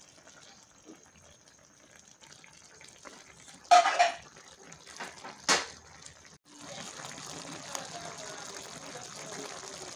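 Chicken feet simmering in coconut-milk sauce in a pan, the bubbling sauce growing steadily louder about two-thirds of the way in. Before that come two sharp knocks a couple of seconds apart.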